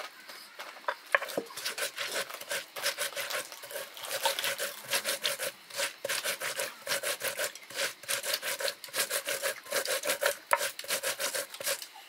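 Spices being ground stone on stone: a hand-held grinding stone (lohoro) worked back and forth over cumin seeds on a flat Nepali grinding slab (silauto), making a steady run of quick scraping strokes.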